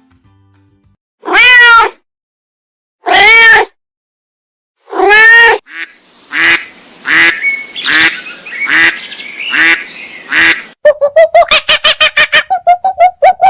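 Animal calls: three long, arched calls, then a run of shorter calls about one a second, then a fast string of rapid calls near the end.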